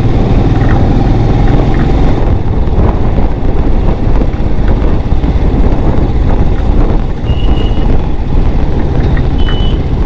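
Road traffic noise with a heavy, steady low rumble of vehicle engines, and two short high beeps in the second half.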